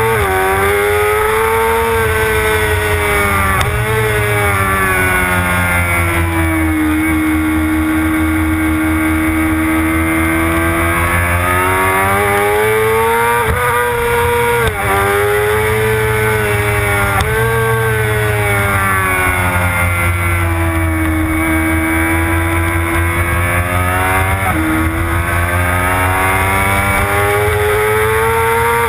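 Motorcycle engine at racing speed, heard from an onboard camera: the revs climb and fall continuously, with several sudden drops in pitch at gear changes.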